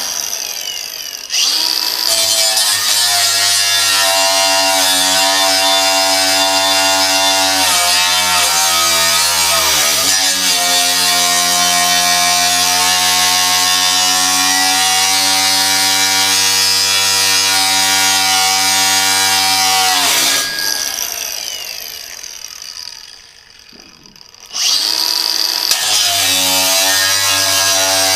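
Milwaukee cordless angle grinder with a cut-off wheel cutting through metal: a steady high motor whine over a sparking hiss, its pitch sagging as the wheel bites. The trigger is let off briefly about a second in and again near the end, where the wheel winds down for a few seconds before the grinder starts up again.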